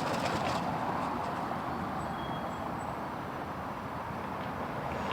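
Steady hum of road traffic from a nearby freeway, with no distinct events.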